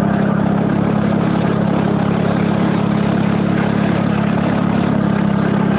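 Go-kart's small engine running at a steady speed, its pitch holding level throughout.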